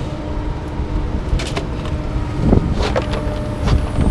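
Vehicle engine running steadily at idle, with a few sharp knocks and clanks.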